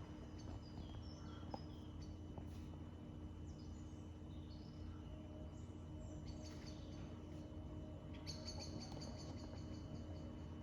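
Faint birdsong: short falling chirps through the first half, then a quick run of repeated notes from about eight seconds in, over a steady low hum.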